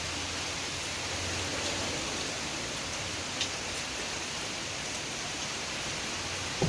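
Heavy rain in strong wind, a steady even rushing hiss, with one small click about halfway through.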